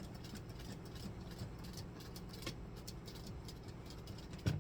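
Sewing machine running steadily while stitching the leather bag's seam, with a steady low hum and light clicking, and a sharper knock near the end.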